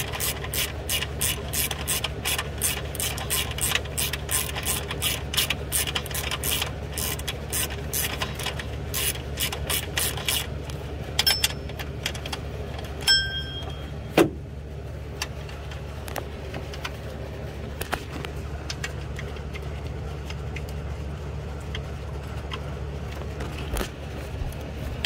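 A short hand ratchet with a 15 mm socket clicking rapidly as it tightens an alternator mounting bolt. The clicking stops about ten seconds in, followed by a few separate sharp clicks and knocks, the loudest about 14 seconds in, over a steady low hum.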